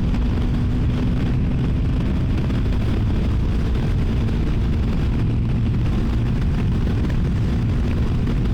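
CFMoto 300NK's single-cylinder engine running steadily through its stock exhaust while riding, under a heavy low rush of wind noise.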